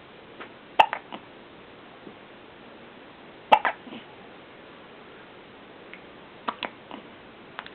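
Hiccups: short, sharp hics about every three seconds, each followed by a softer catch.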